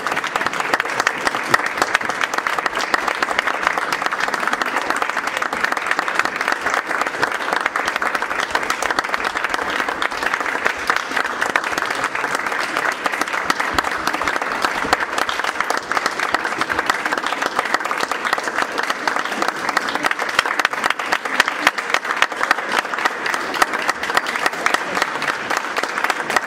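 Small audience applauding steadily, a dense patter of hand claps that holds at the same level throughout.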